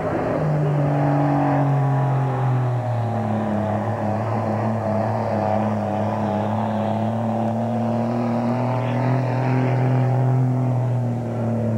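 Dodge Ram pickup engine under heavy load pulling a weight-transfer sled. Its note drops over the first few seconds as the sled bites, then holds fairly steady as the truck grinds down the track.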